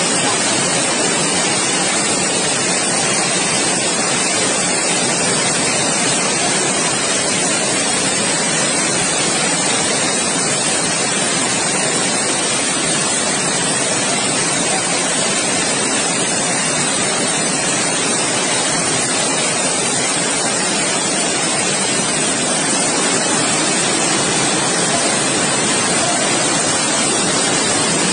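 Fast-flowing floodwater rushing and churning down a street: a steady, loud rush of water that does not let up.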